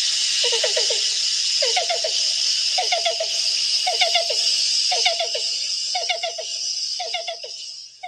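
Recorded song of a black-billed cuckoo played back: repeated groups of three or four soft, low cu-cu-cu notes, about one group a second, over a steady high hiss that fades near the end.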